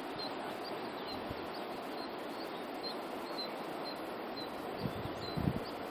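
Outdoor hillside ambience: a steady hiss with a short high chirp repeating about twice a second. A few low thumps come about five seconds in.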